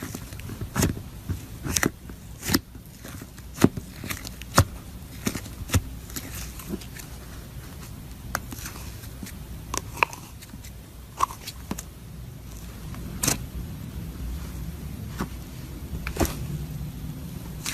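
Crunchy slime being squeezed and worked by hand, giving irregular sharp crackles and clicks, a few a second, over a low steady hum.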